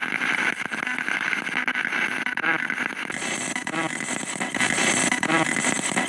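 Spirit box radio sweeping rapidly through stations: continuous static hiss chopped into fast clicks, with brief snatches of broadcast voice a few times. Near the end comes a fragment that the ghost hunters hear as "två" (two), which they take as an answer from spirits.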